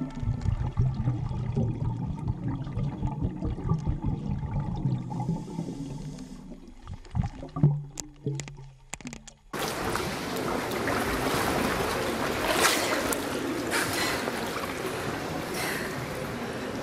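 Muffled underwater sound in a swimming pool: low rumbling and bubbling with a few sharp clicks. About ten seconds in it switches abruptly to the open air of the pool hall, with sloshing water and splashes.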